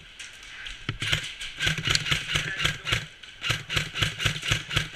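Airsoft electric gun (AEG) firing in rapid automatic bursts: fast sharp cracks over the whir of its gearbox motor, starting about a second in, a brief break near the middle, then firing again.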